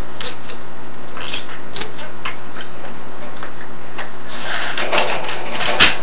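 A pet budgie knocking a cage toy about: scattered light clicks and rattles, busier over the last two seconds, with one sharp knock just before the end.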